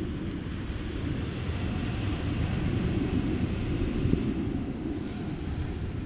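Wind buffeting the microphone, a steady rumbling noise.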